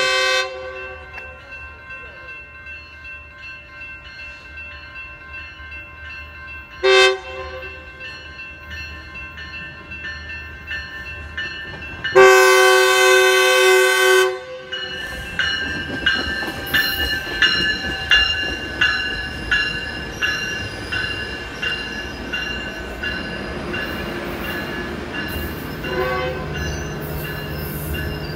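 Metrolink commuter train horn sounding on the approach: a short blast at the start, another short blast about seven seconds in, and a long, loud blast of about two and a half seconds around twelve seconds in. The train then rolls past, its wheels clicking in a regular rhythm, with a grade-crossing bell ringing steadily underneath.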